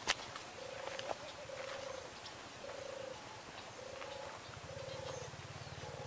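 Short repeated animal calls, about one a second, with a low buzzing trill joining about two-thirds of the way through and a few sharp clicks.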